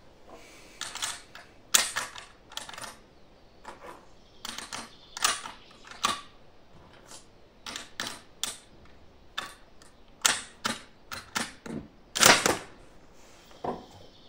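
Irregular sharp clicks and knocks of a bolt-action rifle and its cartridges being handled, with the loudest knocks about two seconds in and near the end.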